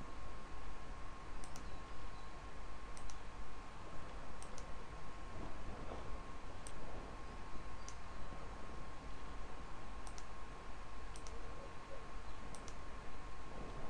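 Computer mouse buttons clicking every second or so, several of the clicks in quick pairs, over a steady faint tone and background hiss.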